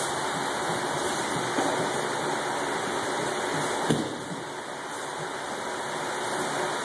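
A thrown attacker lands on a padded martial-arts mat with a single thump about four seconds in, with a lighter knock about a second and a half in, over a steady hiss.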